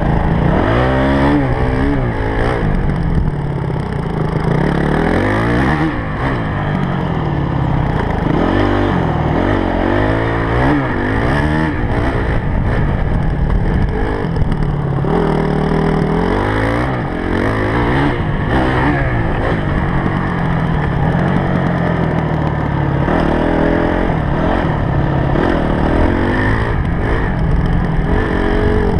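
Honda CRF250X dirt bike's single-cylinder four-stroke engine under way, revving up and dropping back again and again as the rider accelerates and backs off.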